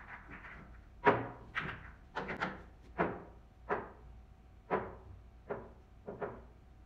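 Pool balls clacking as they are gathered and set down for a new rack: about ten sharp knocks, one every half second to a second, each with a short ring, the first about a second in the loudest.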